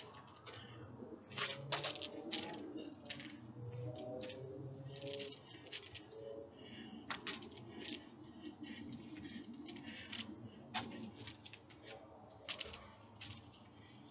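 Irregular light clicks and taps, a few a second, from hooping on a wooden deck: feet on the boards and the hoop knocking.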